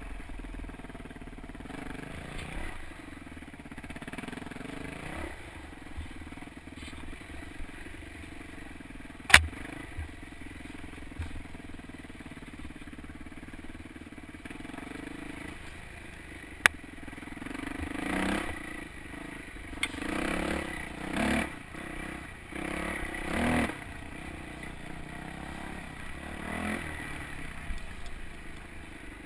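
Yamaha YZ426F dirt bike's four-stroke single-cylinder engine running at low revs over rough trail, with a few short throttle blips in the second half. Two sharp knocks break in, the first, about nine seconds in, the loudest sound.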